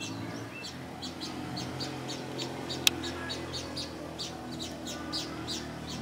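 Small birds chirping: a steady run of short, high chirps, about three a second, with a single sharp click about halfway through, over a low steady hum.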